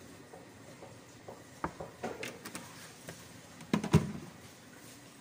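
Kitchen containers being handled: a few light clicks and knocks, then a louder double knock about four seconds in, as of a bowl and plastic bottle being picked up and set down.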